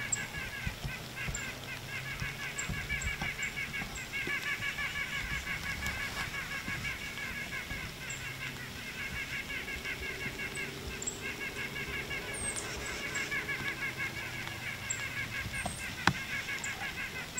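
Continuous animal calls: rapid, evenly repeated pulsed notes in runs of several seconds with brief pauses, with faint high chirps over them and one sharp click near the end.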